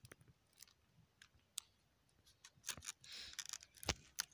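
Hands handling a rooted pineapple crown close to the microphone: scattered light clicks, a short rustle about three seconds in, and a sharper click near the end.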